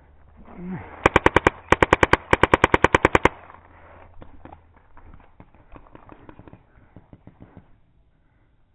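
Paintball marker firing close by in rapid strings, about eight shots a second, three quick runs over a little more than two seconds. Fainter scattered paintball pops follow.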